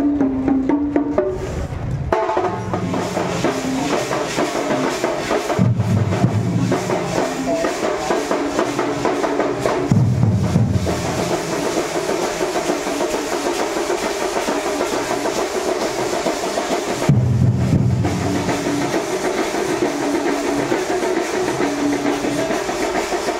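Loud procession music, mostly drumming, with a simple stepping melody line. Deep bass notes come in for about a second at a time, several times through.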